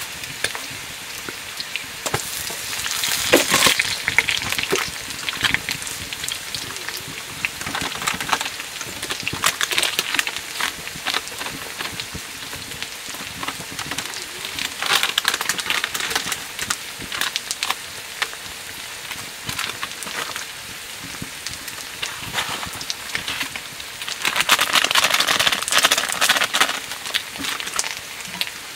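Dried buffalo meat curry frying and sizzling in a pan, a steady hiss full of small crackles and spatters. It swells louder for a moment a few seconds in and again for a few seconds near the end.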